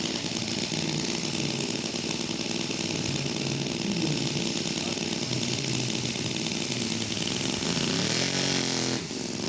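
Small engine of a radio-controlled scale model airplane running steadily. Near the end its note rises and falls again, then drops away.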